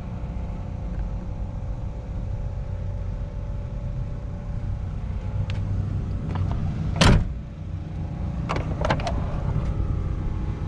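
A steady low rumble, with one loud thump about seven seconds in and a few lighter clicks before and after it.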